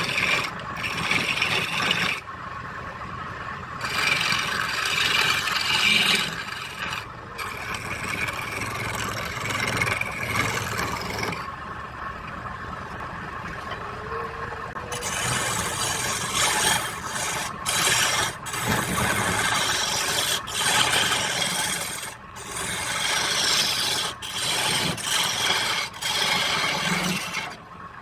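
A hand tool scraping and rubbing against wood in repeated passes, with many short breaks between them.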